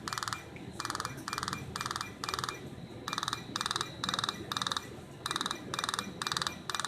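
Fotona Er:YAG laser firing. It makes short bursts of very rapid clicking, each about a quarter second long, in runs of three or four with a short pause between runs.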